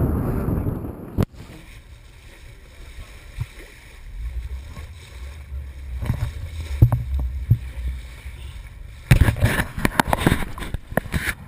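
Wind rushing over the microphone aboard a small sailboat, breaking off sharply about a second in. Then a low rumble of water washing along the hull with scattered splashes, and rough loud buffeting near the end.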